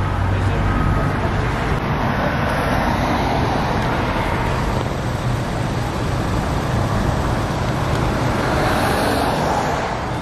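Car driving: steady engine hum and road noise.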